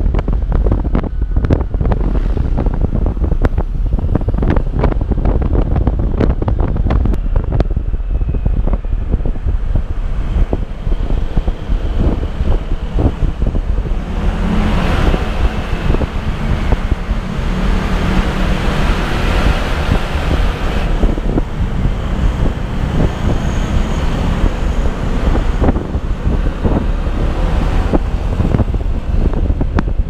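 Wind buffeting the microphone of a moving motorcycle, over the rumble of its engine and tyres. For several seconds in the middle, while passing through a tunnel, the noise gets louder and fuller with a steady engine hum.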